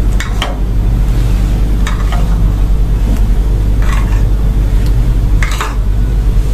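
A spoon scooping fresh cream out of a small ceramic bowl and dropping it onto mashed potato, with a few short scrapes and light taps against the bowls, over a steady low hum.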